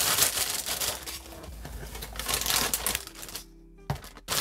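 Black plastic mailer bag crinkling and rustling as it is handled and opened, loud at first and dying down after about three seconds. Two sharp clicks near the end, and faint background music underneath.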